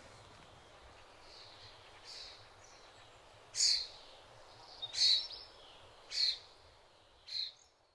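A bird calling outdoors, giving four loud, short, high calls about a second apart after a couple of softer ones, over a faint background hiss.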